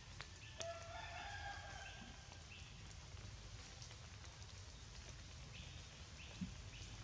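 A rooster crowing once, faintly: one held call about a second long that steps up slightly in pitch, starting a little over half a second in.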